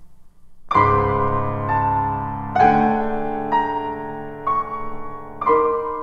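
Piano playing a slow run of sustained chords. After a brief pause, six chords are struck, about one a second, each ringing and fading into the next.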